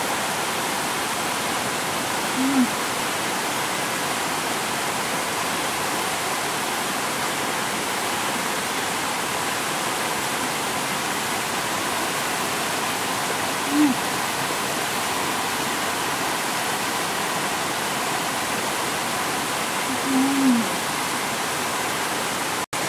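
Steady rush of water from a rocky stream, with three short, low "mmm" hums from a person eating, spread through.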